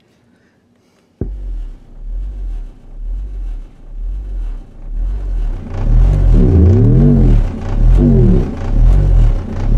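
Two 15-inch subwoofers, wired in parallel and driven by a homemade discrete audio amplifier, playing an undulating bass test signal. It starts suddenly about a second in and pulses in deep swells about once a second. Past halfway it grows much louder and comes through heavily distorted on the recording.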